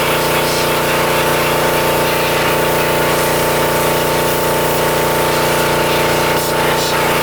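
Gas-engine pressure washer running steadily under load, with the hiss of its water spray.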